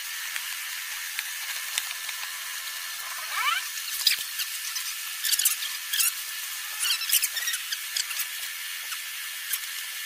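Cardboard box and packaging being handled and torn open: irregular sharp crackles and rustles, with a short rising squeak about three and a half seconds in, over a steady hiss.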